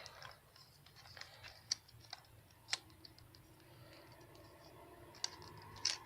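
Faint, scattered light clicks and taps of small plastic toy-blaster parts being handled, with a few sharper clicks now and then.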